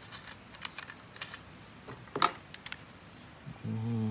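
Metal silencer and metal-bodied C.1911A+ spring airsoft pistol handled in the hands: a few light metallic clicks and clinks, then one sharper click about two seconds in.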